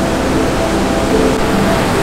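Heavy surf breaking over rocks, a steady loud wash of noise, with soft background music faintly underneath.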